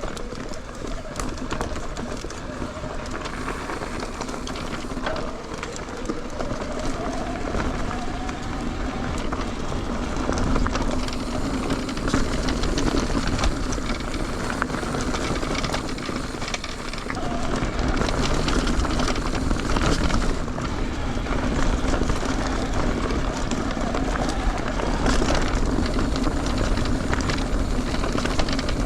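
Mountain bike rolling at speed over a dirt and rock trail: tyres crunching and the bike rattling constantly in rapid clicks and knocks, with wind rumble on the camera microphone. It gets louder about a third of the way in and again past halfway.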